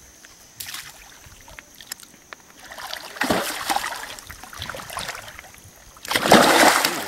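A hooked tambacu thrashing and splashing at the water's surface during the fight, in a few bursts, with the loudest burst of splashing about six seconds in.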